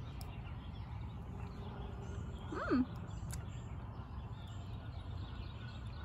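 Outdoor campground ambience: a steady low rumble of wind on the microphone with faint bird chirps. About two and a half seconds in comes one short pitched vocal sound that rises and falls.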